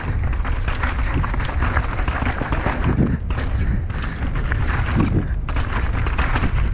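Downhill mountain bike riding fast over a rocky dirt trail: tyres crunching over stones and roots with a dense run of knocks and rattles from the bike, over a steady rush of wind on the microphone.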